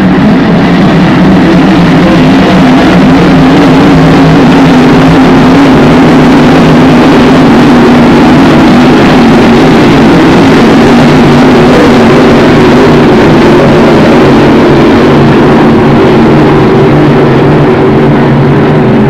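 A pack of Grand Prix racing hydroplanes at speed, their engines a loud, steady drone whose pitch drifts slowly as the boats pass.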